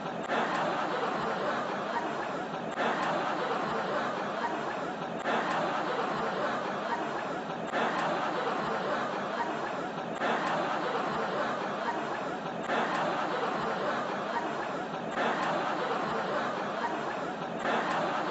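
Canned crowd laughter, a laugh-track sound effect, looped so that the same burst of laughing restarts about every two and a half seconds.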